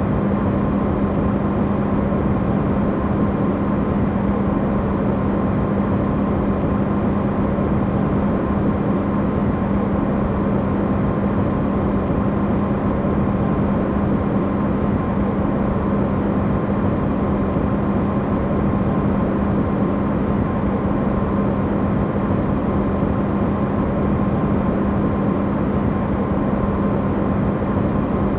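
Electrolux refrigerator running, recorded amplified: a steady, unchanging hum with a strong low tone over a dense rushing noise.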